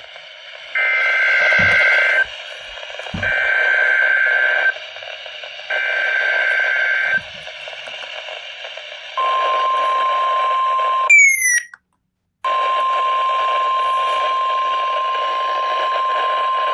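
NOAA Weather Radio test signal received on a weather radio: three bursts of the SAME digital header, each a data screech of about a second and a half, then the steady single-pitch warning alarm tone. Near 11 seconds in, the tone breaks into a few falling chirps and a short dropout, then resumes.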